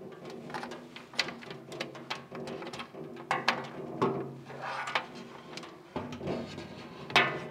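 A clear acrylic shelf handled and slid into a steel-and-glass display cabinet: irregular clicks and knocks of plastic against metal and glass, the loudest near the end, over a steady hum.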